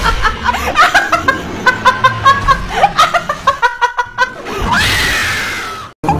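Someone laughing in quick, short, pitched bursts, then a longer cry that falls slowly in pitch near the end.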